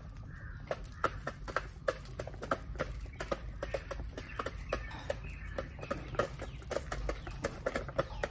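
Chickens pecking grain from the ground around a feeder: a quick, irregular run of beak taps, several a second, with clucking now and then.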